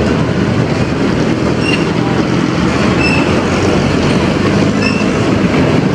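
Loud, steady rumble of street traffic, with three short high chirps spaced a second or two apart.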